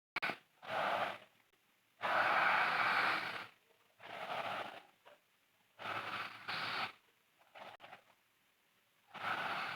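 A sleeping woman snoring: a run of about six noisy breaths with short quiet gaps between, the longest lasting about a second and a half.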